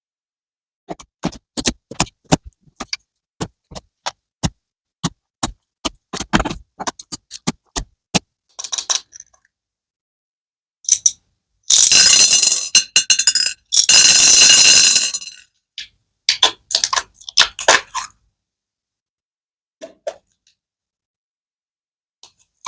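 Slime being played with: a run of sharp clicks and pops, then two loud noisy stretches of a second or two each about halfway through, then a few more clicks.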